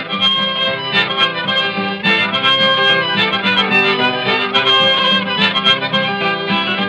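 Instrumental break of a late-1920s old-time recording: strummed acoustic guitar under a harmonica carrying the tune in long held notes.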